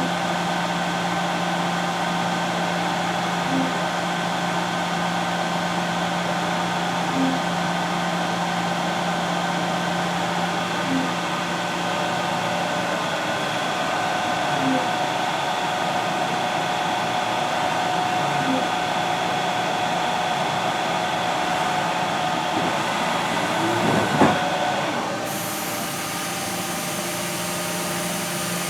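Haas EC-1600 horizontal machining center running: a steady mechanical hum with several steady tones and a faint regular tick about every four seconds. Near the end there is a brief sweep, and the sound changes to a higher, hissier noise.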